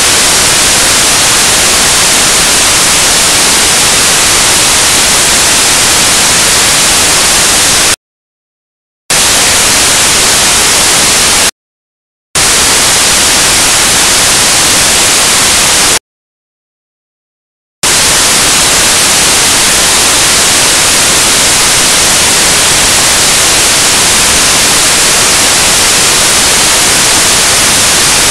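Loud, steady static hiss like white noise, with no game sounds heard through it. It cuts out to dead silence three times: about a second near eight seconds in, a shorter gap just after eleven seconds, and nearly two seconds at about sixteen seconds.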